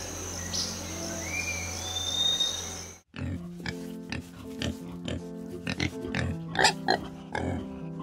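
A group of white-lipped peccaries grunting in short, irregular calls over background music, after a cut about three seconds in. Before the cut, a steady high insect drone and a few chirping bird calls.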